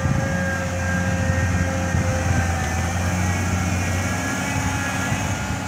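Crawler excavator's diesel engine running at a steady idle: an even, low drone.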